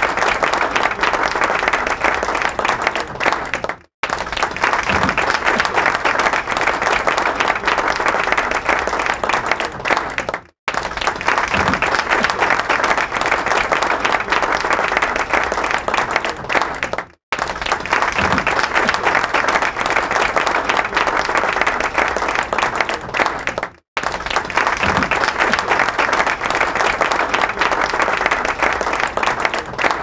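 A large crowd applauding, a dense steady clapping. It cuts out to silence for a moment four times, about every six and a half seconds, as the recording repeats.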